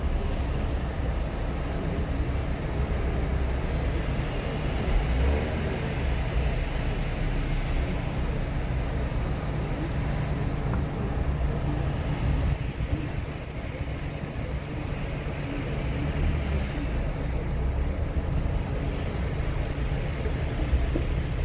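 Car being driven on city streets: steady engine and road noise.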